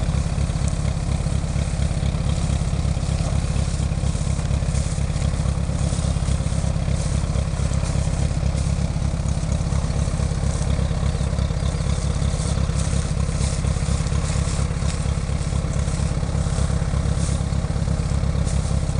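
Tractor engine running steadily, with an even low pulse and some light clatter over it.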